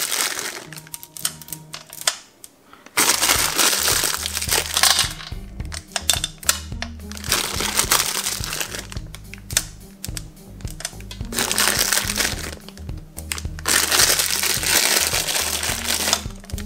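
Background music with a steady, stepping bass line, which gets louder about three seconds in. Under it is the crinkle of a plastic bag as chocolate chips are shaken out.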